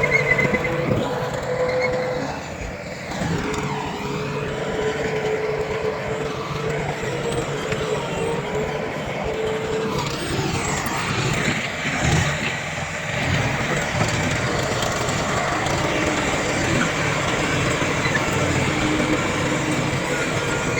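Diesel engines of heavy earthmoving machinery (bulldozer and dump trucks) running steadily, with the engine note rising and falling a few times.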